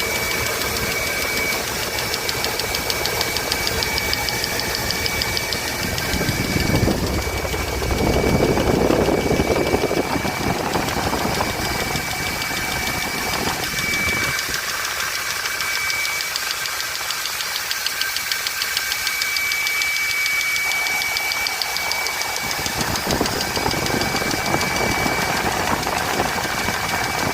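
Ford 4.9-litre (300 cu in) inline-six engine running, with a rapid, steady ticking from the valvetrain, the sign of a bad lifter.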